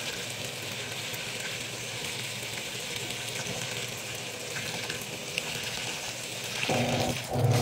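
Water pouring into a top-loading washing machine drum packed with clothes and powder detergent: a steady hiss. Near the end a louder, low rhythmic pulsing starts up.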